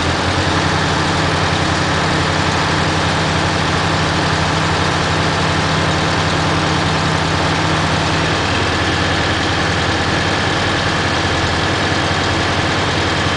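Heavy engine of a crane truck running steadily at idle. A low steady tone in its sound stops about eight seconds in, and a higher thin whine comes in.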